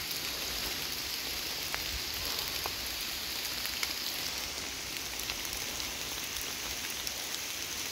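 Steady heavy rain falling, an even hiss with scattered drops ticking close by.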